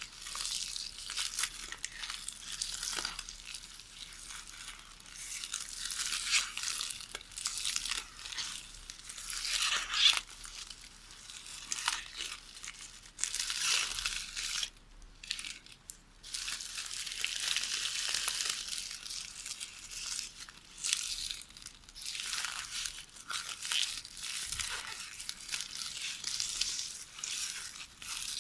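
Magnetic tape from a VHS videotape rustling and crackling as it is worked by hand in knitting, in irregular swells of crinkly noise with a brief pause about halfway through.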